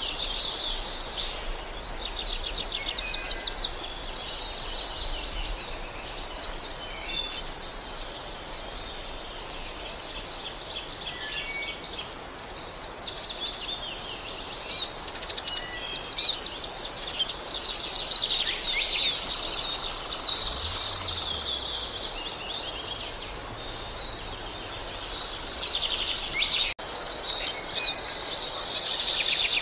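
Small songbirds chirping and singing in a busy chorus of quick high chirps and short trills over a steady hiss. The chirping thins out for a few seconds in the middle, then grows dense again.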